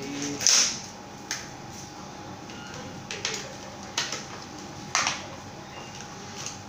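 Plastic packaging crinkling and crackling in someone's hands as a small packet is handled and opened: a handful of short sharp crackles, the loudest about half a second in.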